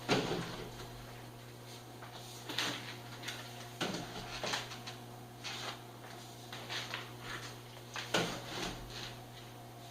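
Packs of beer being set down and stacked on one another: a handful of light, separate knocks and rustles, a second or so apart.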